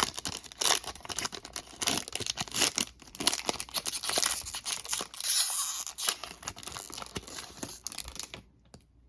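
A foil trading-card pack wrapper being torn open and crinkled in the hands, a dense crackling that stops abruptly near the end.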